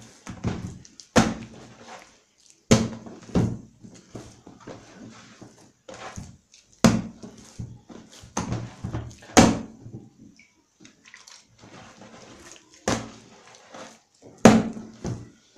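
Yeast dough for a brioche being kneaded by hand in a wooden bowl: irregular thumps, about eight loud ones a second or two apart, as the dough is pushed and knocked against the wood, with softer squishing and rubbing between.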